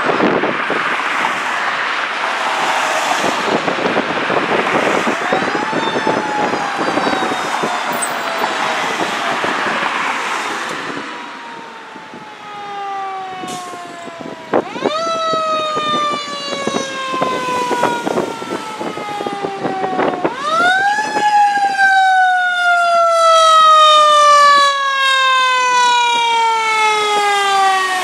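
Siren of a 2015 E-One Quest 100-foot rear-mount aerial ladder fire truck running on a call. It is faint under traffic noise for the first ten seconds or so, then loud and close. Three times it climbs quickly in pitch and winds down slowly.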